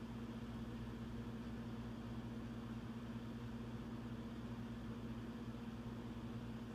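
Quiet room tone: a steady low hum with no other sounds.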